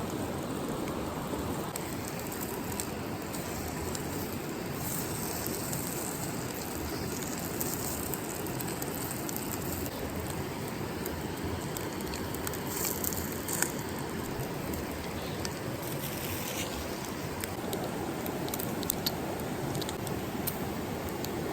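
Steady rushing of a flowing river, with a few short, sharp clicks and crackles now and then.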